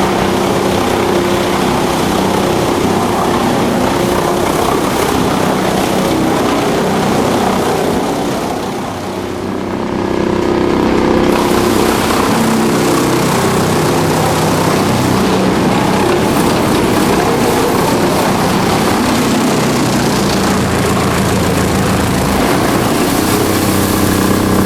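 DFR4-1000 drum wood chipper running loudly and steadily, a machine hum under a dense noisy clatter, which dips briefly about nine seconds in before coming back up.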